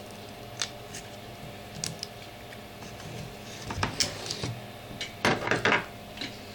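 Scattered clicks and small knocks of cylindrical 18650 battery cells and a flathead screwdriver being handled and prised out of a plastic laptop battery pack, with a closer cluster of knocks about four seconds in and again a little after five seconds.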